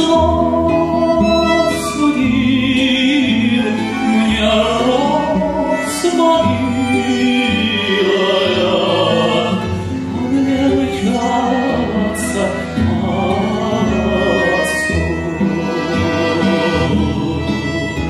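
Male tenor singing a slow Russian folk song live with vibrato, over instrumental accompaniment.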